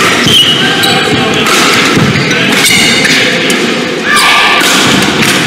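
Badminton singles rally: rackets striking the shuttlecock roughly once a second, with court shoes squeaking and thudding on the court as the players lunge.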